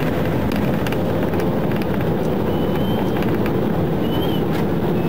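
Police patrol car driving at speed: steady road and tyre noise with engine hum, heard from inside the car. A faint brief high tone sounds about two and a half seconds in.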